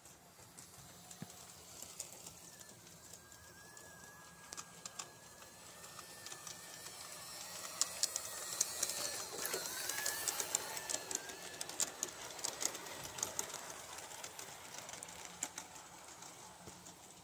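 G-scale garden-railway train running past on brass track, its wheels clicking over the rail joints. The clicking grows louder as the train comes close about eight to eleven seconds in, then fades as it moves away.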